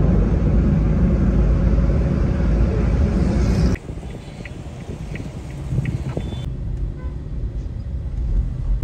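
Road and engine noise inside a moving car: a steady low rumble that cuts off about four seconds in. After the cut comes a quieter traffic hum with a few short, faint ticks.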